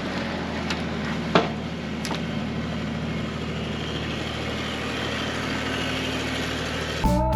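An engine running steadily, with a few sharp clanks in the first couple of seconds. Guitar music comes in right at the end.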